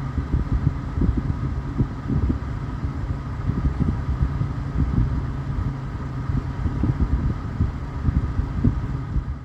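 Two Arctic P14 PWM 140 mm case fans running at full speed: a steady rush of air over an uneven low rumble, with a faint steady whine from the fans on top.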